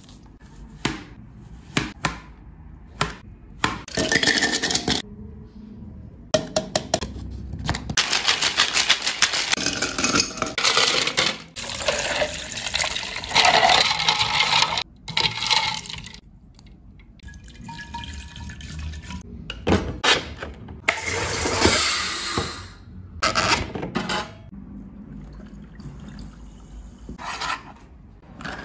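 Kitchen preparation sounds: ice cubes clinking and water sloshing as they are stirred in a plastic measuring jug, densest in the middle, amid clicks and knocks of hands and a knife handling dragon fruit on a plastic cutting board.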